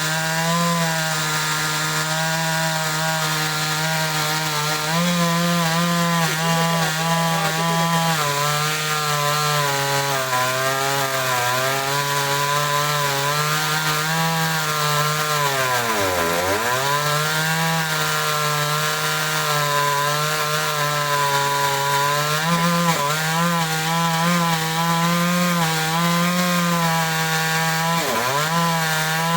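Chainsaw engine running at high revs while cutting wood, its pitch wavering with the load. About halfway through it bogs down sharply in the cut and picks back up, with a smaller dip near the end.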